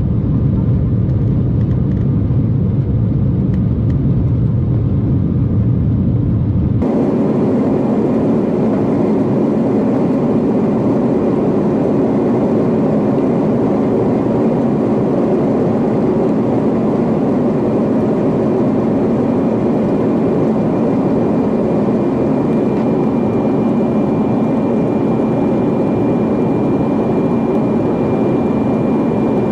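Steady engine and airflow noise inside the cabin of an FDA Embraer regional jet climbing after takeoff. About a quarter of the way in the sound changes abruptly and rises in pitch, with a thin steady whine added, as the recording switches to double-speed playback.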